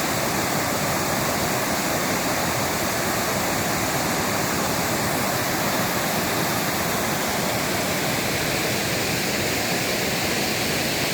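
Mountain valley stream rushing steadily, running full after rain.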